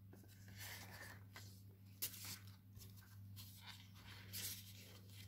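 Faint rustling and scraping of plastic stencil sheets being handled and slid over one another, with a sharper click about two seconds in. A steady low hum runs underneath.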